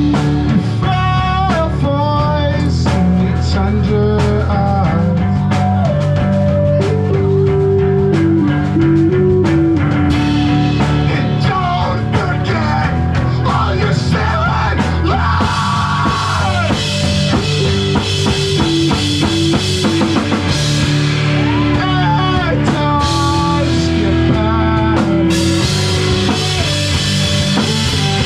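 Live rock band playing, with drums and guitar and a melody line carried over a steady, dense backing.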